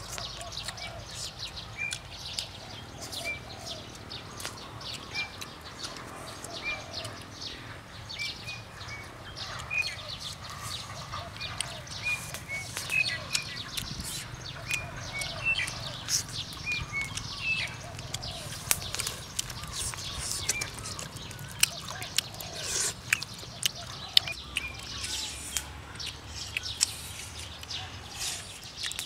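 Small birds chirping in short, high, repeated notes, over frequent small clicks and rustles of hands working on banana leaves.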